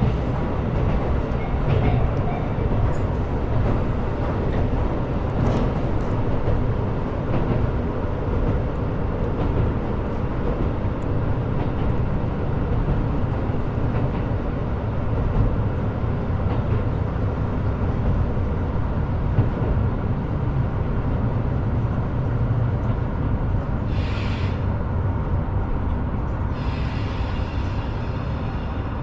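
KiHa 125 diesel railcar running: a steady rumble of engine and wheels on rails. A short hiss comes in late, and a longer one begins near the end.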